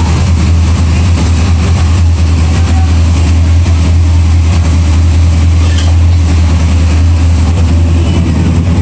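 1966 SS's 383 stroker V8 idling steadily, a constant low engine hum.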